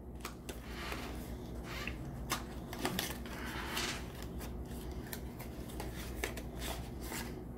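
Small cardboard product box being handled and opened: scattered light clicks and scrapes of card, with a longer sliding rub about four seconds in.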